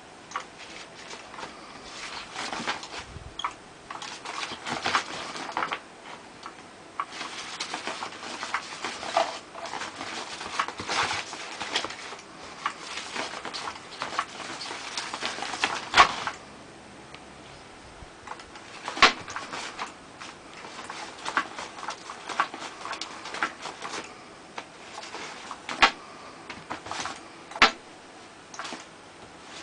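Kitten playing with a toy: irregular scuffles, taps and sharp clicks, busy through the first half and sparser after about the middle.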